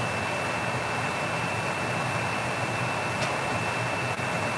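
Water boiling hard in a pot of whole crabs, a steady rushing bubble noise, with a constant faint high whine alongside.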